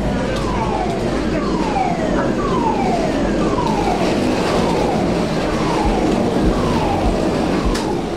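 An alarm sounding a repeated falling tone, about three sweeps every two seconds, over a steady rumble of background noise.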